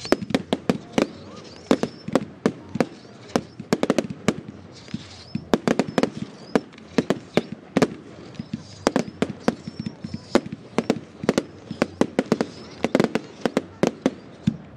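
Aerial fireworks bursting: a dense, irregular run of sharp bangs, several a second.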